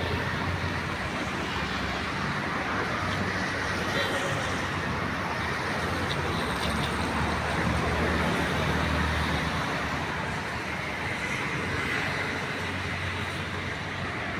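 Heavy rain falling as a steady hiss, with road traffic droning low beneath it, swelling and fading at times.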